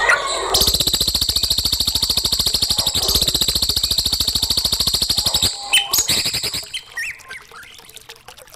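Songbird singing a long, fast, rattling trill of evenly spaced high notes for about five seconds, followed by a few short, separate notes.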